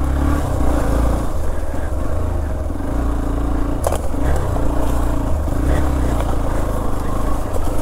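Motorcycle engine running on an off-road ride, its pitch rising and easing as the throttle changes, with one sharp knock about four seconds in.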